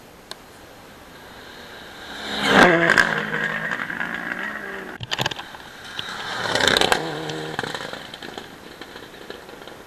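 Rally cars racing past at speed, two loud passes about four seconds apart, the engine pitch dropping sharply as each goes by. Between them comes a quick burst of sharp crackling pops.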